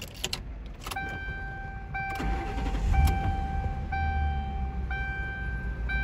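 A key clicks as it turns in a new ignition lock cylinder, then a dashboard warning chime starts sounding about once a second. About two seconds in, the 2008 Mercury Grand Marquis's 4.6-litre V8 cranks, catches and settles into a steady idle under the chime, showing the new lock cylinder starts the car.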